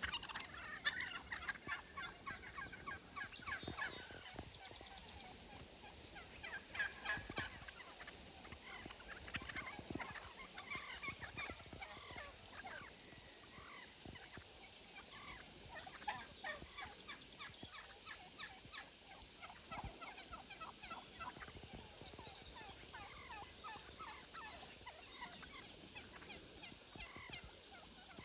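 A flock of Merriam's wild turkeys calling, toms gobbling again and again, one rattling gobble after another, with the loudest bursts in the first seven seconds.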